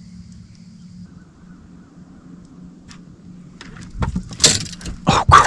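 A low steady hum, then from about four seconds in a run of loud, irregular clicks and clatter as the fishing rod and reel are handled when a fish strikes.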